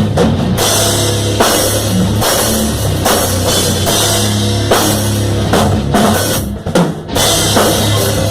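Loud rock music driven by a full drum kit, with bass drum and cymbals prominent, and a short break in the sound about six and a half seconds in.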